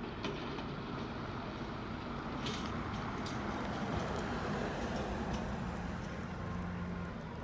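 Automated side-loader garbage truck running, its engine and hydraulics working the arm as it empties a cart, with a few sharp knocks and rattles from the cart and lid in the middle.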